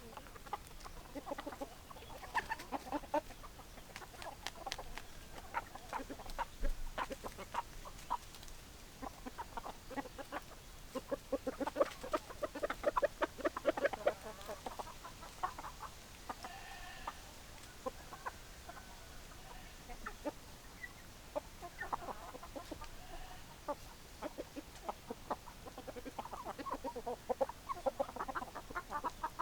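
Hens clucking: runs of short, quick clucks that come and go, busiest around the middle and again near the end.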